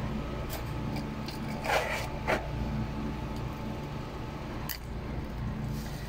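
Two short scraping sounds close together about two seconds in, over a steady low hum, with a few faint clicks.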